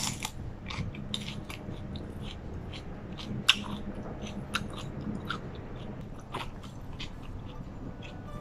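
A person chewing food with the mouth close to the microphone, with many small wet clicks and crunches; one sharper click comes about three and a half seconds in.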